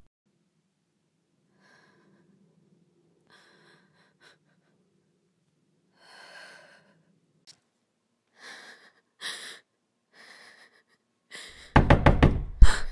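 A woman's sharp breaths and gasps, spaced a second or so apart. Near the end comes a quick run of loud knocks on a door, the loudest sound.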